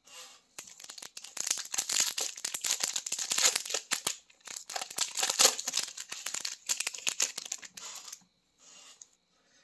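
Shiny foil wrapper of a hockey card pack being torn open and crinkled by hand: a dense crackling rustle that stops about eight seconds in, with one short rustle after.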